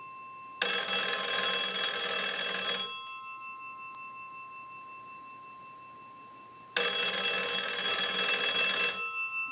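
Stromberg-Carlson wall crank telephone's original twin bell gongs ringing, driven by a ring cycle from a telephone line analyzer. There are two rings of about two and a half seconds each, about six seconds apart, and the gongs hum on, fading, after each.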